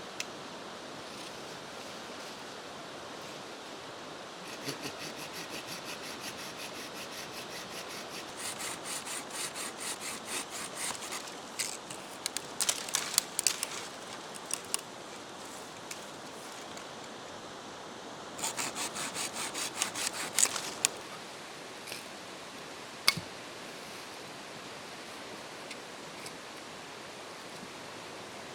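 Two runs of quick, rhythmic rasping strokes, about three a second, over a steady background hiss. A few sharp clicks and snaps fall between and after the runs.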